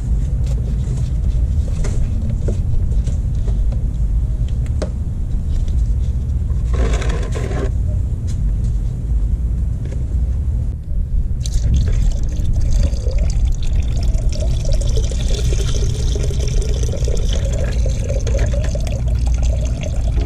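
Old coolant pouring from a motorcycle's plastic coolant reservoir into a plastic bucket, starting a little past halfway and running on steadily, over a steady low rumble. Before the pour there is light handling of the reservoir and its hose, with a brief rustle in the middle.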